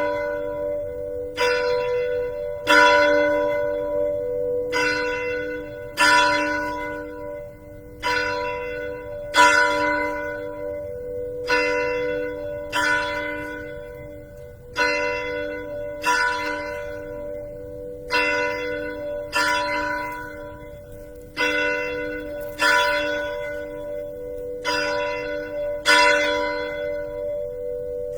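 A single church bell tolling slowly, about seventeen strokes in an uneven short-long rhythm, each stroke ringing on into the next. It is a memorial toll, once for every 10,000 American lives lost to COVID-19.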